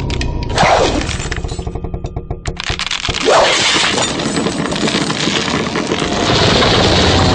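Film sound effects of rock cracking and crumbling away at a cliff edge, with many small impacts and two short falling sweeps, about a second in and again past the three-second mark.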